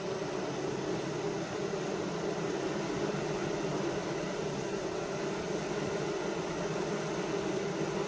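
Honeybee colony humming steadily at the hive entrance: an even drone of many bees.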